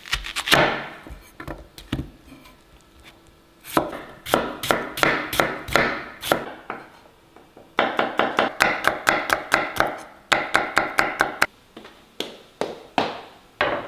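Kitchen knife chopping on a cutting board: a few single chops, then two fast runs of strokes at about five a second.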